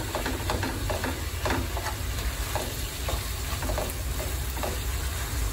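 Ground beef with onions and red pepper sizzling in a frying pan, stirred and broken up with a spatula that scrapes the pan at irregular moments. The meat is being cooked until no red is left.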